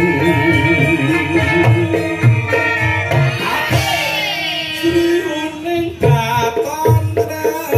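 Live Javanese gamelan music: gongs and metal kettle-gongs ringing with a hand drum beating and a voice singing over it, with a sliding vocal line about halfway through.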